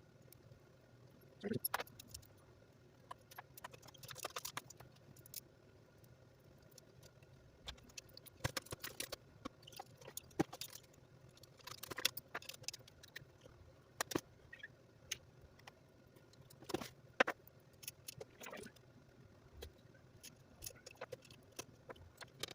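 Small tools and parts of a radio-controlled car clicking and rattling as it is worked on by hand, in scattered short clinks over a faint steady hum.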